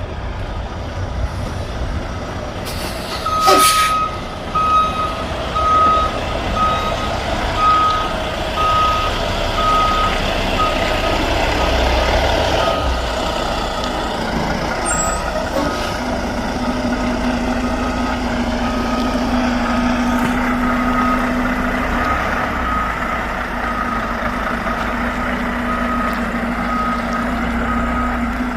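Semi-truck's reversing alarm beeping steadily as the truck backs up to a loading dock. A sharp air-brake hiss comes just as the beeping starts, and a steady low hum comes in about halfway through.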